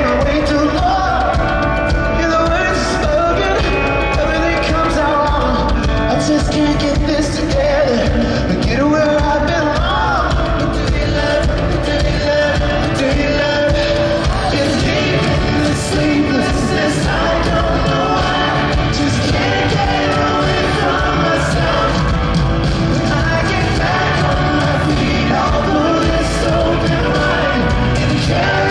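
Rock band playing live: a male lead singer over electric guitar, loud and continuous. Recorded from within the audience in a large hall.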